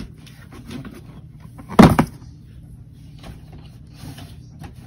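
Cardboard shoebox being handled: the lid is shut and the box set down, with one short loud knock about two seconds in, then faint rustling and taps as another box is taken from a shelf.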